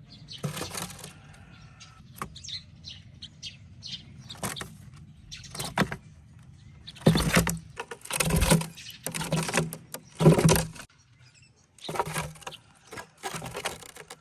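Young sparrow chirping in short high calls, then several loud bursts of wing flapping and scrabbling as it jumps and flutters against the sides of a foam box.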